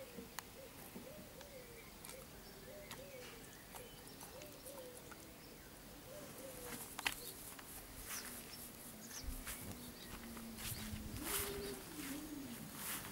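A bird calling in a low, rising-and-falling phrase repeated about once a second through the first half, with scattered light clicks and rustles.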